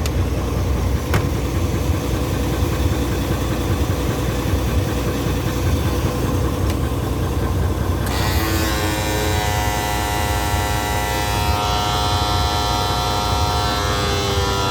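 Isuzu 6WF1 inline-six diesel truck engine idling steadily, running again after its two stuck PCV valves on the fuel pump were replaced to cure overpressure and hard starting. About halfway through, a steady humming tone with many overtones joins in.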